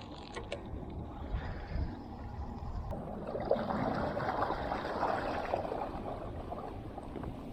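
Water lapping and gurgling against a small boat's hull, swelling for a few seconds in the middle.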